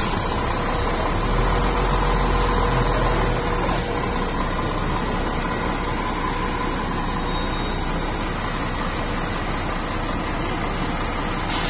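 Heavy diesel engine of a Zoomlion QAY200 mobile crane running steadily as the crane rolls slowly forward, with a short air-brake hiss near the end.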